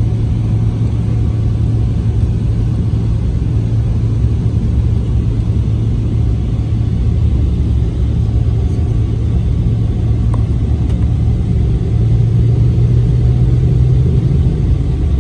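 Engine and airflow noise heard inside the cabin of a Boeing 777-300ER on the ground before takeoff: a steady low rumble with a deep hum that rises a little about twelve seconds in.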